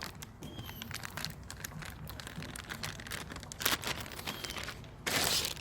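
Cardboard battery box and its packing being opened and handled: a string of small clicks and crinkles, then a louder rustle about five seconds in.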